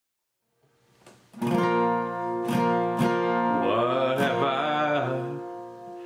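Acoustic guitar strumming chords, starting about a second and a half in, with a man's singing voice coming in over the ringing chords a little past halfway.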